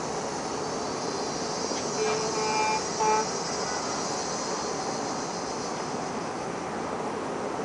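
Two horn blasts, a longer one about two seconds in and a short one right after, over a steady distant hum of city traffic and port activity.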